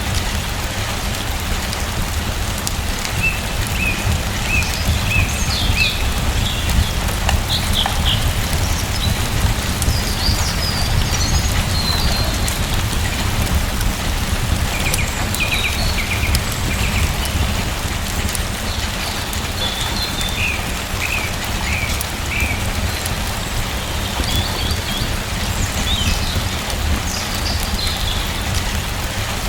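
Steady rain, with a deep low rumble under it, while a bird chirps in short series every few seconds.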